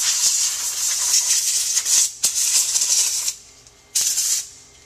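Can of compressed air hissing through its straw as it blows dust off a laptop's access panel: one long spray with a brief break about two seconds in, then one short burst near the end.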